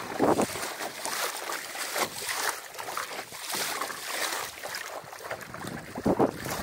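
Water splashing and lapping along the hull of a small sailing dinghy under way, with wind buffeting the microphone. It comes in irregular surges, louder just after the start and again near the end.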